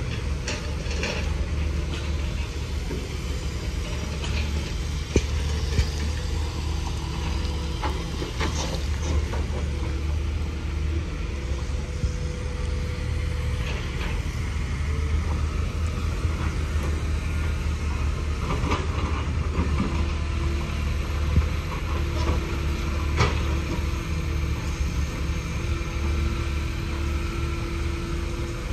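Heavy diesel machinery idling, a steady low rumble, with a few scattered knocks.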